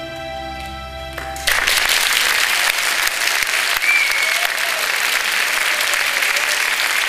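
The song's last held chord rings on, cutting off about a second and a half in, when the audience breaks into loud applause that carries on steadily.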